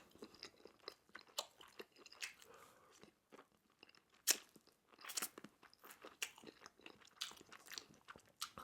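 Close-miked chewing of crunchy Korean fried chicken: faint, irregular crunches of the fried crust, with one sharper crunch about four seconds in.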